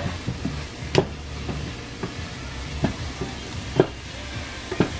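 Chopped onions sizzling in oil in a nonstick frying pan as they are sautéed toward browning, stirred with a wooden spatula that knocks against the pan several times, about once a second.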